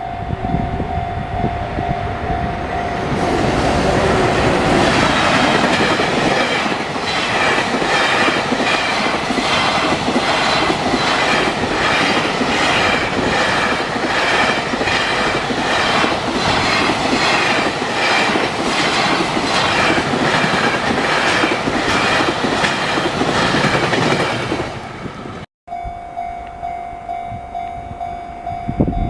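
Level-crossing warning bell ringing, then drowned out for about twenty seconds by a train passing over the crossing, its wheels clattering over the rail joints in a steady rhythm. Near the end the sound breaks off abruptly and the crossing bell is heard ringing again.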